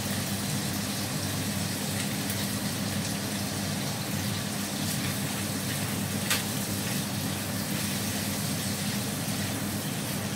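Chopped shallots and garlic frying in a little oil in a non-stick wok: a steady sizzle as they are stirred, with a steady low hum beneath. A single sharp tap about six seconds in.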